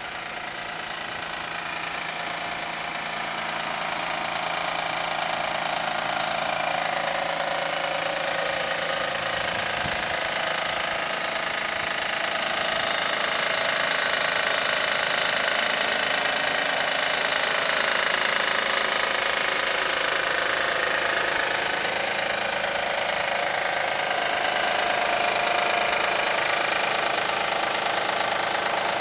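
2007 Acura MDX's 3.7-litre V6 idling with a knocking noise, which the owner takes for a failing drive-belt tensioner. It grows louder over the first few seconds, then holds steady.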